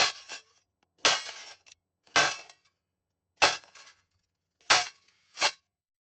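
A shovel digging a hole: the blade stabs and scoops about once a second, each a sharp crunch, some trailing off in a short scrape. The last two strokes come closer together.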